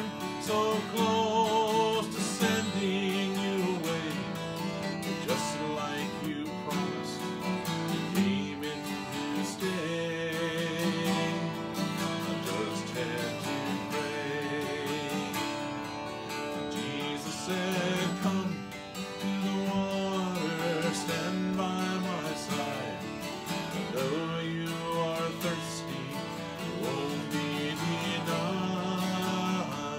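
Twelve-string acoustic guitar strummed steadily, with a man's voice singing along in parts.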